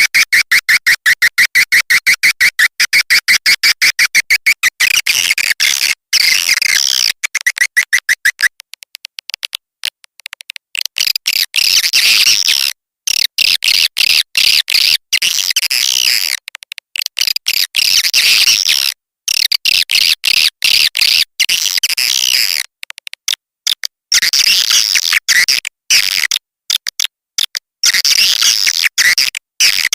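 Swiftlet lure call: swiftlet chirps played as a calling sound to draw swiftlets to a nest house. A rapid, even train of chirps, about ten a second, gives way after about eight seconds to bursts of higher, shrill twittering with short breaks between them.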